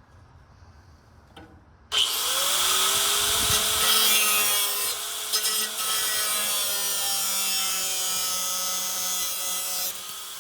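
Angle grinder spinning up about two seconds in and cutting through metal fuse board mounts: a loud, steady grinding over the motor's whine, easing off slightly near the end.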